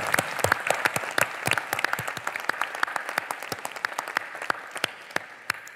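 Large audience applauding: dense clapping that gradually thins and fades away toward the end.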